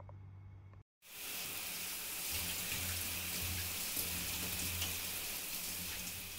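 Faint room hum, then about a second in a steady hiss of shower water spraying fades in, easing off near the end.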